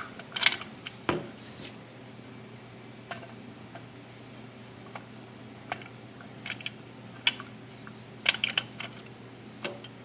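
Scattered light clicks and taps, about a dozen at uneven intervals, with one duller knock about a second in, over a low steady hum.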